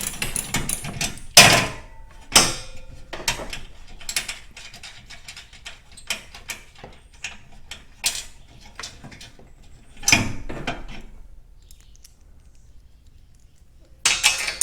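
Ratchet wrench clicking and metal tools knocking against steel hardware as bolts on a garage door torsion spring assembly are worked loose. The clicks and clanks come irregularly, with louder knocks about a second and a half in and again about ten seconds in, go quiet for a few seconds, then clatter again near the end.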